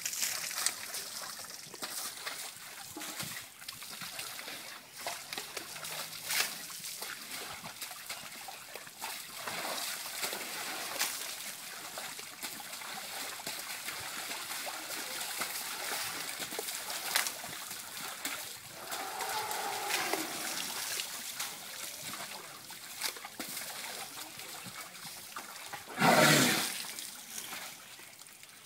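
Baby elephants dipping their trunks in a water trough and splashing: a steady trickling and splashing with scattered small knocks, and one sudden much louder burst of noise near the end.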